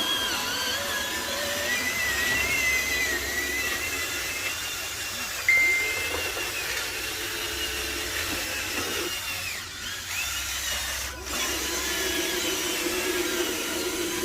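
A small electric motor of an RC toy vehicle, whining as its pitch glides up and down while it speeds up and slows. About five and a half seconds in there is a sudden louder jolt, and it dips briefly twice near the end.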